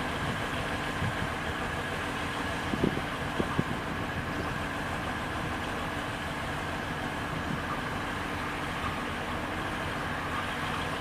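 Diesel locomotive engine running with a steady drone as the locomotive approaches slowly, with a few light knocks about three seconds in.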